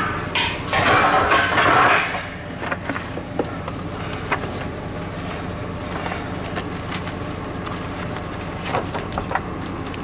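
Gear being handled in a service van: a loud rustling burst for about the first two seconds as a refrigerant cylinder is put away, then scattered light clinks and knocks, over a steady low hum.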